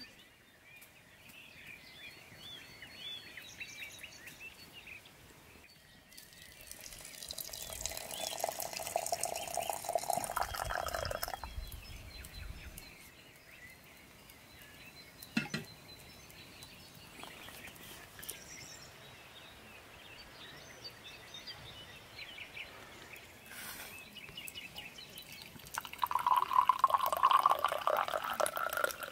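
Hot liquid poured twice into vessels, the pitch climbing as each fills; the second pour, near the end, is black tea running from a brass samovar's tap into a pear-shaped tea glass. A single sharp knock falls about halfway through.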